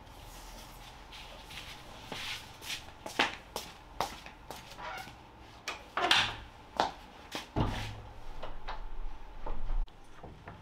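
Scuffing footsteps in slippers on a tiled floor with a few knocks, then a wooden plank door being closed: a low rumble for about two seconds near the end that stops with a sharp click.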